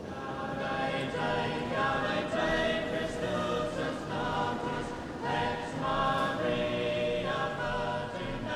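A choir singing in held chords that change every second or so, starting about half a second in.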